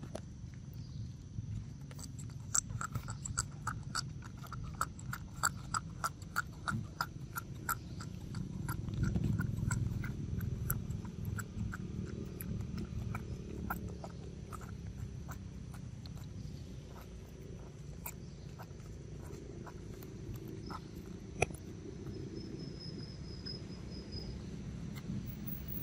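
Baby macaque sucking juice through a straw from a small carton: a run of quick wet clicks and smacks, about two to three a second, that thin out after several seconds, over a steady low rumble.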